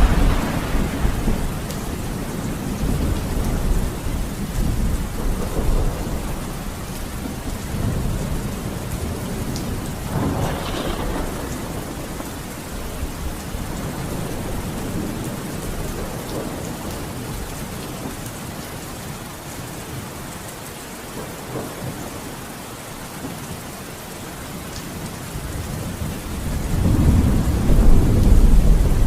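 Thunderstorm: steady rain with rolls of thunder, one rumbling at the start, another about ten seconds in, and a louder one building near the end.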